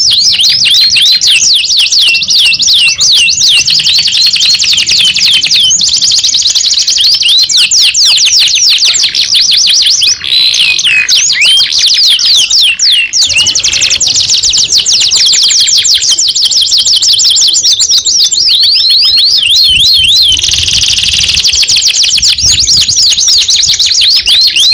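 Domestic canary singing in long rolling trills: fast runs of repeated high whistled notes sweeping up and down, with short breaks about ten and thirteen seconds in.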